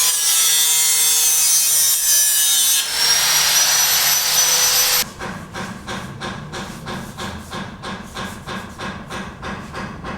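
Sawing on a building site: a loud, steady saw cut that runs for about five seconds and changes its tone partway through, then quieter rhythmic strokes, about three a second.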